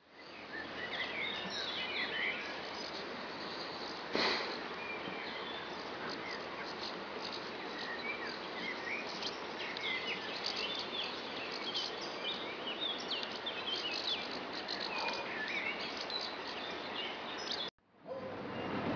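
Several small birds chirping and singing over a steady outdoor hiss, with a short sharp knock about four seconds in. The sound drops out briefly near the end.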